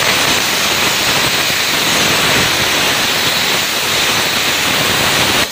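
Chin Shui 40A air plasma cutter's torch arc hissing steadily as it cuts through sheet metal, in a cut deliberately made at the wrong travel speed; the hiss cuts off suddenly at the end.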